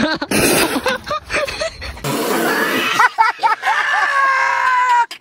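People's voices shouting, then one long drawn-out vocal call that slides slowly down in pitch and stops just before the end, with a short burst of hiss about two seconds in.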